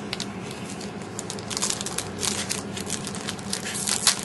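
Foil trading-card pack wrappers crinkling and tearing as packs are ripped open and handled: a run of irregular crackles, loudest just before the end, over a faint steady low hum.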